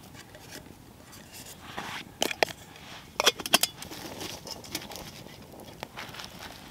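Wood campfire crackling, with two quick clusters of sharp metal clinks about two and three and a half seconds in as a lidded metal pot with a bail handle is set down over the flames.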